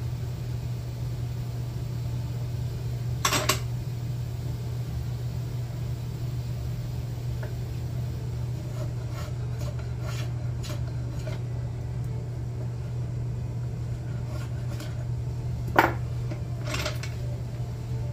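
Hand tools clinking and knocking against a wooden hatchet handle: a sharp knock about three seconds in, two more near the end and scattered lighter clicks between, over a steady low hum.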